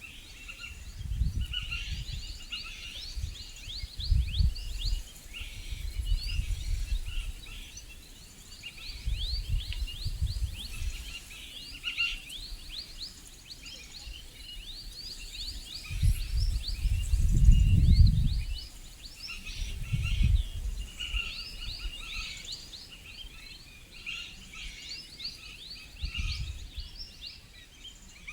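Dense forest chorus of many small birds, rapid high chirps overlapping without a break. Irregular low rumbles of wind buffeting the microphone come and go underneath, the strongest a little past the middle.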